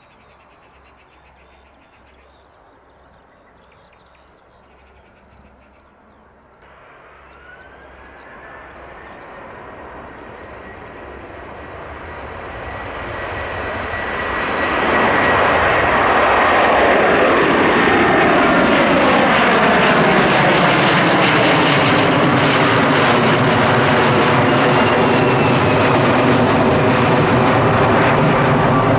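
Airbus Beluga XL's two Rolls-Royce Trent 700 turbofans at takeoff power as it climbs out. The jet noise comes in faintly about a quarter of the way through, with a thin high whine, and swells over several seconds to a loud steady rumble that has a slowly sweeping, phasing tone as the aircraft passes overhead.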